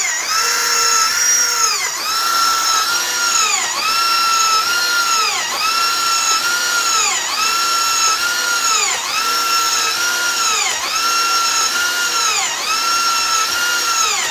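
Electric motor driving an air rifle hand pump, running steadily with a whine whose pitch sags and recovers about every two seconds as each pump stroke loads it.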